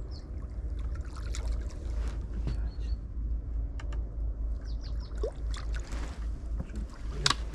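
Light splashing of river water as a hooked carp is played near the bank, over a steady low rumble, with scattered small clicks and one sharper click near the end.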